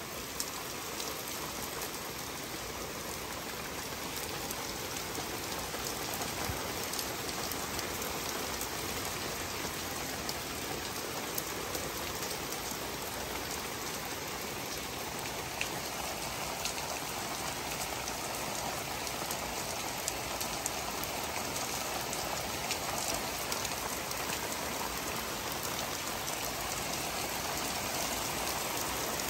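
Heavy thunderstorm rain pouring steadily in an even hiss, with scattered close drops ticking, getting slightly louder toward the end.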